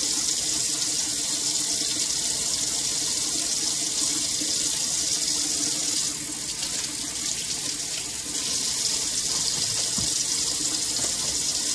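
Kitchen faucet running in a steady stream into a sink, a constant rushing of water that dips slightly in loudness partway through.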